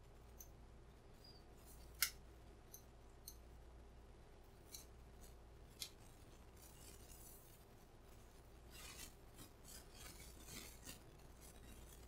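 Faint metallic ticks and scratching of a steel hook pick lifting pins inside a padlock's pin-tumbler core under tension, with one sharper click about two seconds in and a cluster of quick scratchy ticks near the end. The picker takes the pins for security pins, giving counter-rotation.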